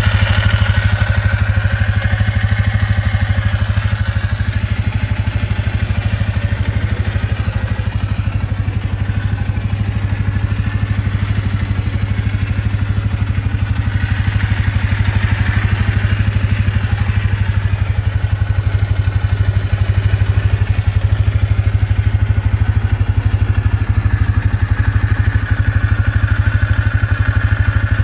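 2021 KYMCO MXU 450i LE Prime ATV's single-cylinder engine idling steadily.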